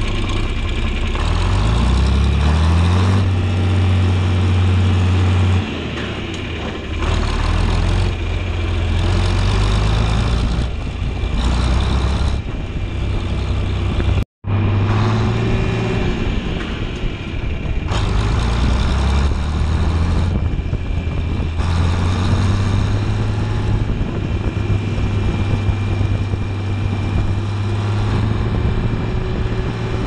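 John Deere 4020 tractor's six-cylinder engine running under way, its pitch rising as it speeds up in the first few seconds, then pulling steadily at road speed.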